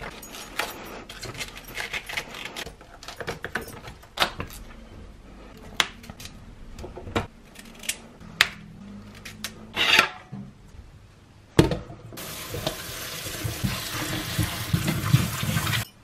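Kitchen knife cutting a cauliflower on a cutting board: irregular sharp chops and knocks. About twelve seconds in, a kitchen tap runs water steadily over the florets in a colander in the sink, then stops abruptly.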